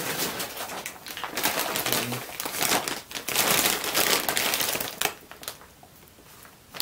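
Clear plastic bag crinkling and rustling as it is handled, dying down about five seconds in.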